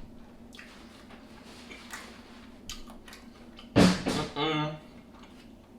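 A person eating a seafood boil: soft eating and shell-handling noise with a few small clicks, then a loud two-part vocal sound of enjoyment about four seconds in.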